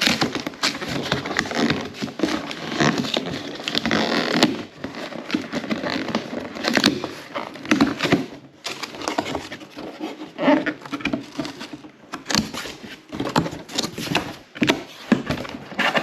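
Packaging of a new toner cartridge being unwrapped and handled: irregular crinkling and rustling with frequent small knocks and clicks.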